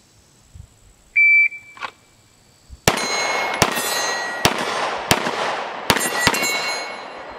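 Shot timer beeps once. About a second and a half later, a 9mm Glock 19 Gen 5 pistol fires six shots in three quick pairs at steel targets, the hits ringing out as metallic pings.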